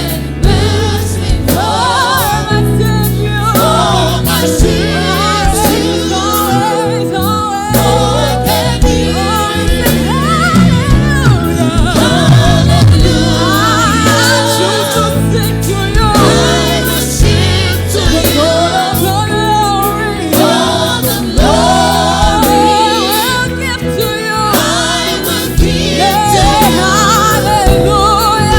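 Gospel choir singing with instrumental backing: sustained low bass notes and a steady beat of percussive strikes under the wavering sung melody.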